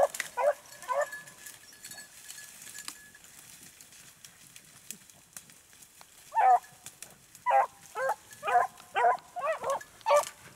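Beagles baying in short, chopped barks as they run a rabbit's track: a few barks at the start, a pause, then a quicker string of about ten from about six seconds in.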